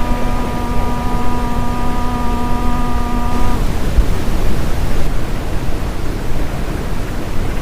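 Old-time city street ambience: a dense, steady rumble of traffic and street noise. A held chord-like horn or whistle tone sounds for the first three and a half seconds and cuts off sharply.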